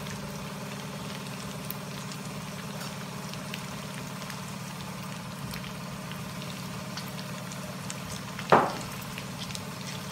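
Chicken and tofu sisig sizzling in a pan, a steady crackle over a low hum. Near the end comes one brief loud burst as sliced chillies are tipped in from a glass bowl.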